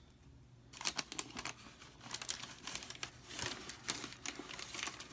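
Packing paper in a shoebox crinkling and rustling as it is handled and pulled away from new sneakers, starting about a second in.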